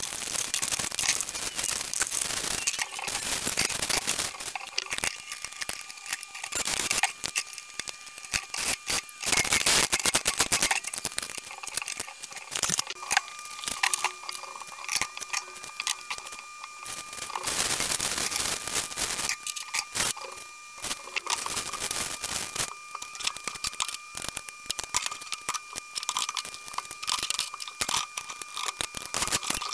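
Cardboard packaging and plastic wrap handled and pulled open: crinkling, tearing and scraping, with small knocks of parts being moved and set down.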